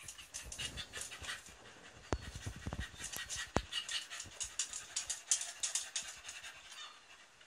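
Quick, irregular breathy panting, with scattered light clicks and a sharper knock about three and a half seconds in.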